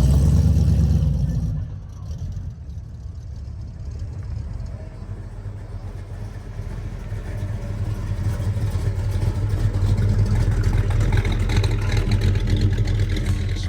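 Car engine running with a deep rumble, loud at first and dropping off about a second and a half in, then growing louder again through the second half.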